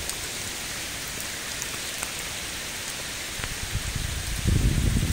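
Steady rain falling on a lake and the leaves around it: an even hiss with single drops ticking now and then. A louder low rumble comes in near the end.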